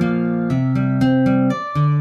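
Background music: a plucked string instrument, such as an acoustic guitar, playing a run of notes, several a second, each one fading after it is struck.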